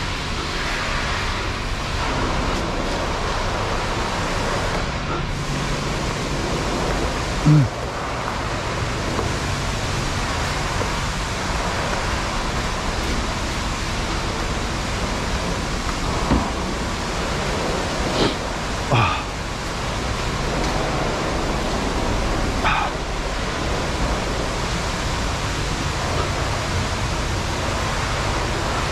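Steady hiss of a pressure-washer wand spraying water onto a truck, with a few short sharp sounds over it, the loudest about seven seconds in.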